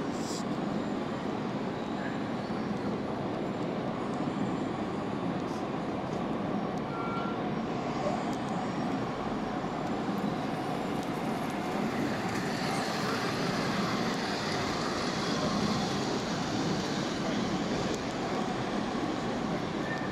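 5-inch gauge model diesel locomotive running along the track, a steady engine-like drone.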